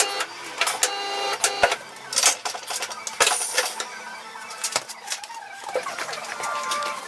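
Rapid, sped-up clatter of tyre work on a tyre-changing machine: many sharp clicks and knocks with short squeaky tones in between.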